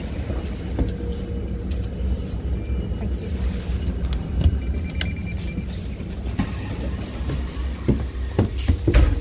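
Volvo B5LH hybrid double-decker bus running while stopped, a steady low rumble through the floor of the lower deck. Footsteps and small knocks on board sound over it, loudest near the end.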